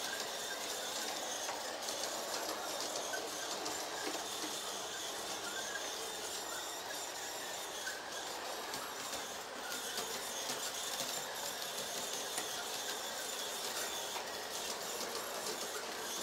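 Toy train running on its loop of track: the steady mechanical noise of its geared motor and wheels on the rails.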